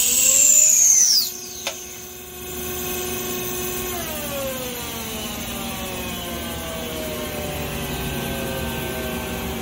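Okuma CNC slant-bed lathe spindle whining as it winds down, the loud high whine falling in pitch and cutting off about a second in, followed by a single sharp click. A second, lower whine falls away near four seconds, leaving the machine's steady running hum.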